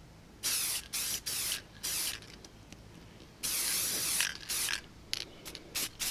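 Aerosol can of spray paint sprayed in a run of short hissing bursts, about ten in all, with one longer spray of nearly a second in the middle and quick short puffs near the end.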